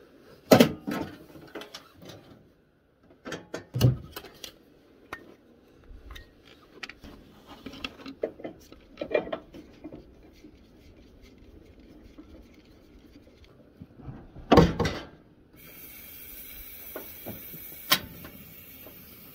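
Knocks and clatter as a Coleman portable propane grill is unfolded and handled and a 1 lb propane cylinder is fitted to it. About three-quarters of the way in, a steady hiss of propane gas sets in, with one sharp click near the end.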